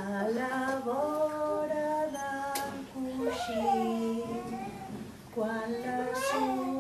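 A woman singing a song without accompaniment, in held notes that step up and down, with a short break about five seconds in.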